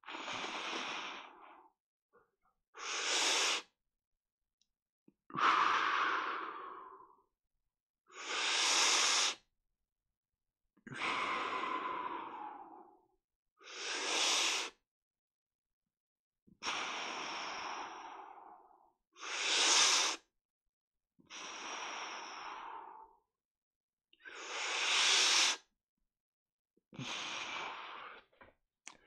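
A man doing deep belly-breathing exercises, loud breaths with pauses between them: short, sharp breaths alternate with longer ones that fade away, about five of each. These are slow, deep breaths that fill the belly, used to wake up atrophied core muscles after a spinal cord injury.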